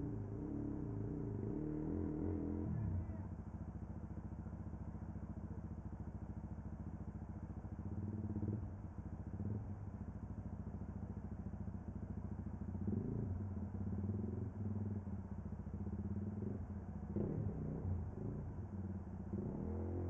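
Dual-sport motorcycle engine running and revving in bursts as the bike is walked through a river with its rear wheel spinning in the water. It revs hard for the first few seconds, then runs lower with short rises in revs.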